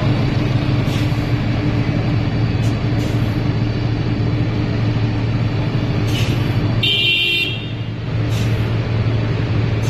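A vehicle engine idling with a steady low hum, with a few faint clicks and a short high toot like a horn about seven seconds in.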